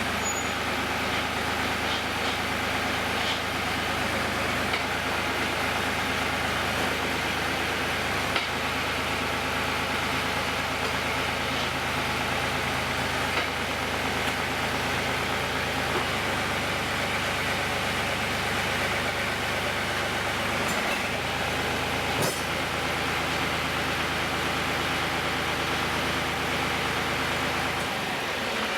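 Engine of a piece of heavy equipment idling steadily, with a few faint clicks.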